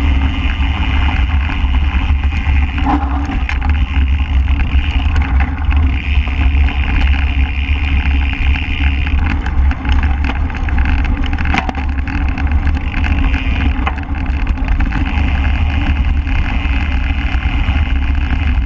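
Steady deep rumble of wind and rolling noise on a bike-mounted GoPro as a Cannondale Scalpel mountain bike runs along a dirt trail, with tyre noise and now and then a sharp knock or rattle from the bike over bumps.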